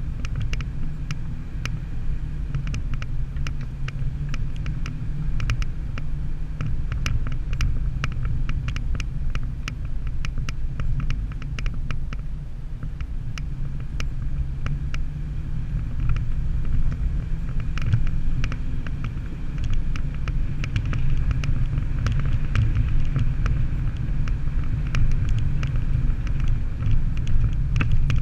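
An off-road 4x4 driving slowly on a dirt track, recorded from a camera on its bonnet: a steady low rumble with many short sharp clicks and ticks over it, growing somewhat louder in the second half.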